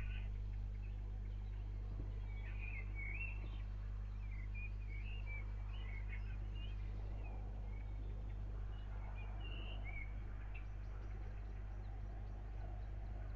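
Small birds chirping in quick, short calls over a steady low hum.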